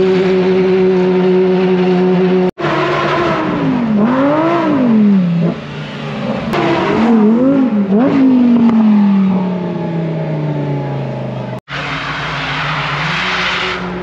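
Car engines revving: a steady drone first, then revs rising and falling several times, then dropping away, with a rushing, tire-like noise near the end. The sound is cut abruptly twice, at about 2.5 s and about 11.6 s, as if by edits.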